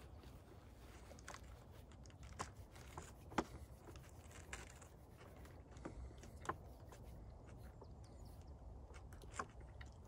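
Scattered small clicks and light crunches, about half a dozen, the sharpest about three and a half seconds in, over a faint low rumble.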